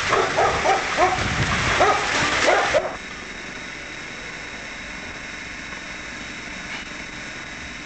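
A dog barking in quick, high yips, which stop abruptly about three seconds in. After that there is only the steady hiss of a VHS-C camcorder's tape.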